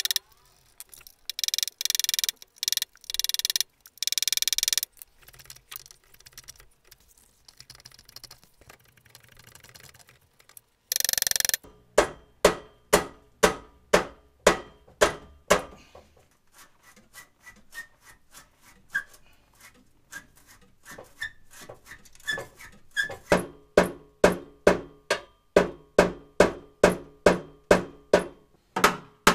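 Hammer blows on a rusted, seized exhaust pipe, the old rear section being knocked loose: a run of sharp metal strikes with a ringing after each, about two a second, lighter for a few seconds in the middle. Before the hammering there are several short hissing bursts.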